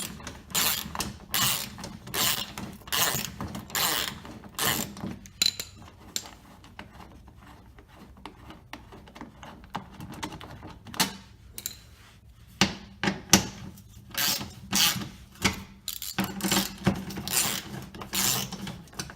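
Hand ratchet with a 10 mm socket clicking in repeated back-and-forth strokes, about two a second, as small bolts are backed out. The strokes give way to scattered clicks in the middle, then start up again near the end.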